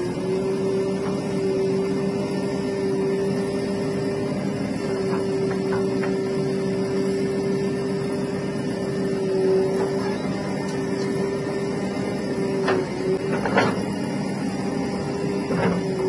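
JCB 3DX backhoe loader's diesel engine running steadily at working revs, a constant hum with a steady whining tone on top. A few sharp knocks come near the end.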